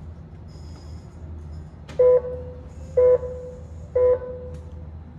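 Electronic start-countdown beeps from a race timing system: three identical mid-pitched beeps one second apart, counting down to the start of an RC car race. A steady low hum runs underneath.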